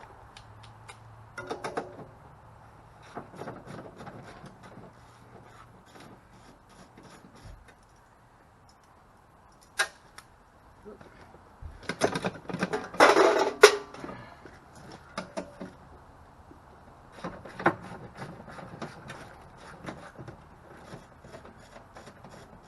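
Hand tools working bolts on a riding mower's steel body: runs of small metal clicks and clinks, with a louder clatter of metal about halfway through.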